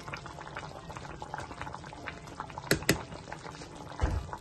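Broth with bone-in meat boiling in a large pot, a steady crackly bubbling. Two sharp clicks come about two-thirds of the way through, and a low thump near the end.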